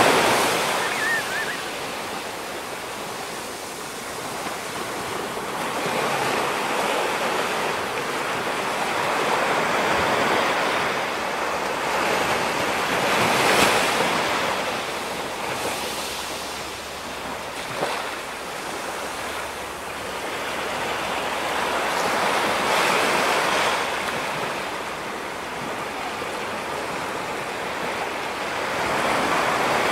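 Ocean surf breaking on a rocky shore, a continuous wash that swells and ebbs every few seconds as each wave comes in. Once, partway through, there is a short sharp click.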